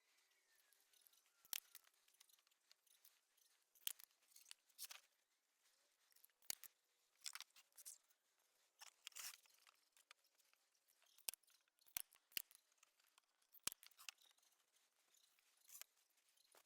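Faint, scattered clicks and knocks of pallet-wood hive pieces being handled and fitted together, at irregular intervals in near silence.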